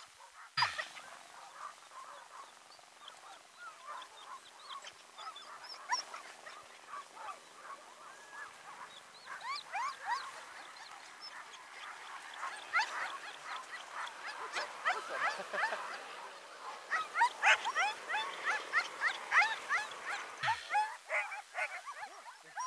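A team of Alaskan husky sled dogs yipping and yelping in an excited chorus, many short high calls overlapping. The chorus swells from about ten seconds in and is loudest near the end. A sharp knock sounds just after the start.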